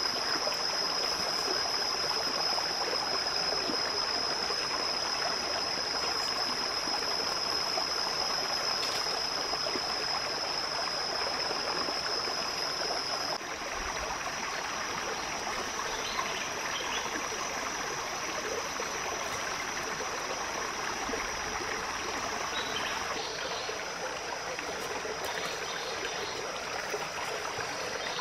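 Small rocky stream running, a steady rush of water, with a steady high-pitched whine over it that shifts slightly about halfway through.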